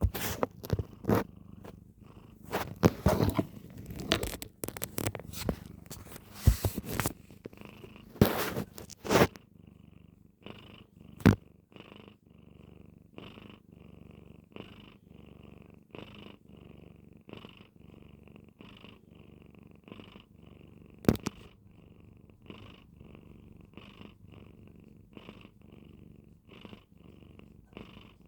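A sleeping pet snoring in short, even, rasping breaths, about three every two seconds. Louder irregular rustling and knocks cover it for roughly the first nine seconds, and there are single sharp clicks about eleven and twenty-one seconds in.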